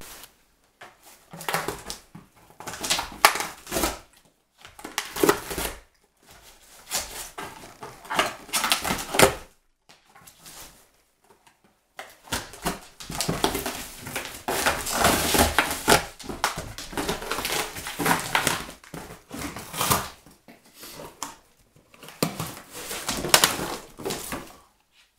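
A dog tearing and chewing a cardboard box: ripping and crumpling cardboard in irregular bursts of a second or two, with short pauses between them.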